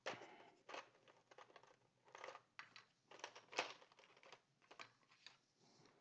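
Plastic keycaps and their clear plastic tray being handled: a quiet, irregular run of soft clicks and rustles as keycaps are picked up and set down, the sharpest click about three and a half seconds in.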